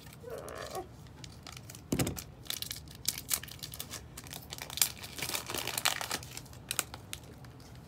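Crinkly plastic packaging of Pokémon trading cards being torn open and crumpled, with rapid crackling rustles and one knock about two seconds in.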